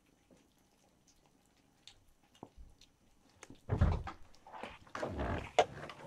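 Kittens eating canned wet food: faint chewing and smacking at first, then louder, uneven snuffling and knocking sounds from about four seconds in.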